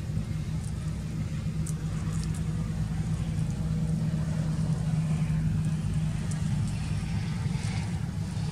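An engine or motor running steadily with a low hum that swells slightly about halfway through, with faint light ticks above it.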